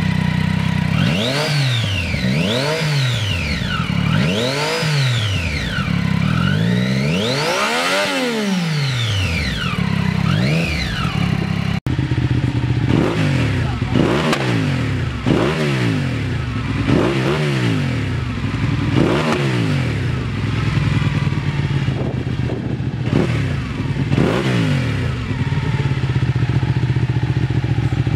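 Triumph Daytona 675's inline-three with an Arrow slip-on exhaust idling and revved in about six throttle blips, the pitch rising and falling each time, the biggest rev near the end of the run. Then a Ducati 899 Panigale's V-twin with a Termignoni exhaust idling and blipped many times in quicker, shorter revs.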